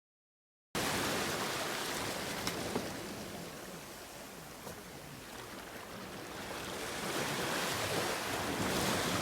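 Ocean surf: waves washing onto the shore in a steady rushing noise that eases and then swells again, cutting in suddenly after a moment of silence.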